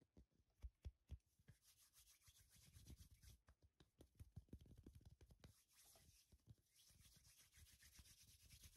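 Fingertips and palms tapping and rubbing on the glass of a mirror, close to the mic, for ASMR. Quick light taps come in a rapid patter, and from about a second in there is a steady, faint swishing rub over them.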